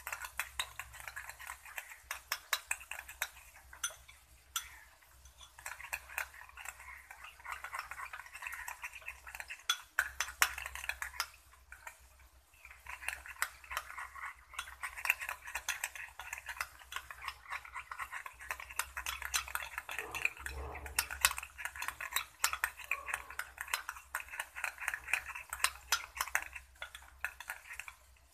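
Metal spoon beating a thick sauce in a glass bowl, clinking and scraping rapidly against the glass, with a few short pauses.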